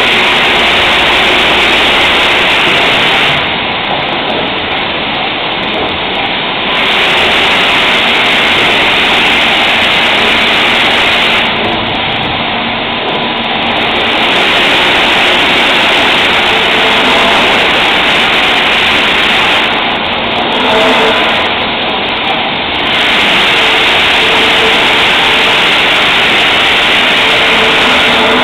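Automatic lathe running, a loud steady machining hiss over a low hum. The hiss drops back briefly several times, for one to three seconds each.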